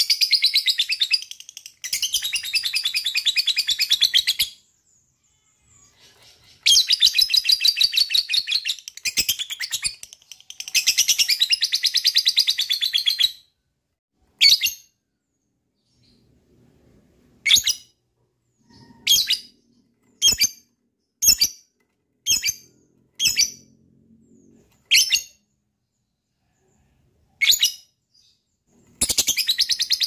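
Lovebird giving its long chattering 'ngekek' call: shrill runs of rapid repeated notes, each lasting a few seconds, four times in the first half. Then single sharp chirps come every second or two, and another long chattering run starts near the end.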